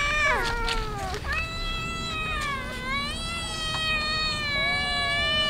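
A crowd of hungry street cats meowing, begging for food: several meows overlap in the first second, then one long, drawn-out meow that wavers in pitch.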